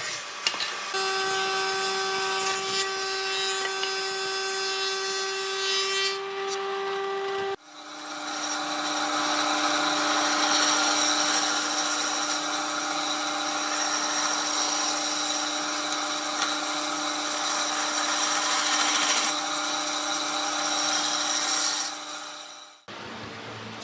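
An electric power tool running against wood, its motor giving a steady whine. About a third of the way in the sound cuts abruptly to a lower-pitched motor with much more grinding noise, which stops abruptly shortly before the end.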